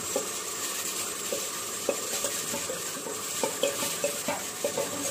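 Spice powders going into hot mustard oil in a pot, sizzling steadily, while a steel spoon scrapes them off a steel plate and taps against it and the pot rim with short metallic clinks, more often in the second half.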